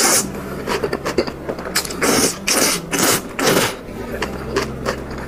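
Close-miked mukbang eating sounds: slurping thick spicy fried rice noodles, then wet chewing, with a cluster of four short loud slurps between about two and three and a half seconds in.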